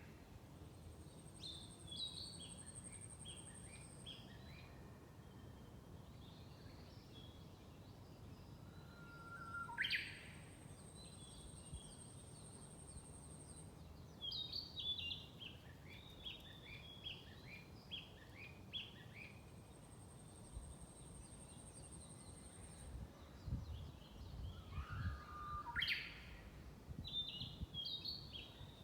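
Several songbirds singing in a forest. A thin, high, buzzy note lasts a few seconds and repeats about every nine seconds. About ten seconds in and again near the end comes a loud call that sweeps sharply upward. Between them are bursts of short twittering notes, and a few low thumps come late on.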